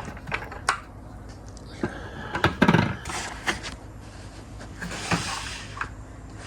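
Handling noises as a die-cast model bus is put down and the next one picked up: scattered light clicks and knocks, a louder thump about two and a half seconds in, and short rustles.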